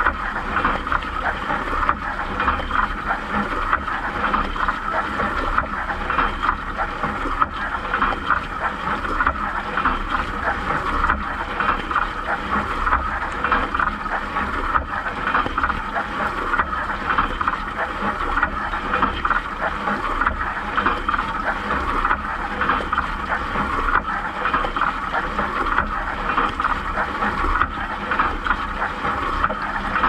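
Siemens dishwasher spraying water over the dishes and racks, heard from inside the wash chamber: a steady rushing splash with a low rumble underneath.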